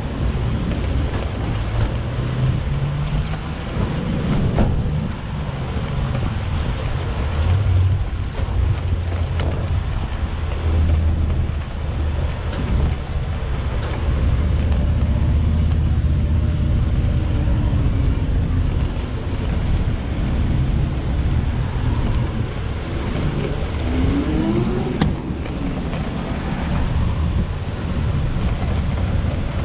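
Petrol running from a fuel-station pump nozzle into a boat's deck filler: a steady low rumble and hum under a rushing hiss, with a sharp click near the end.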